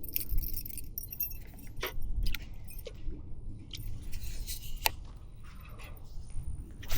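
Light metallic jingling and scattered clicks over a low rumble.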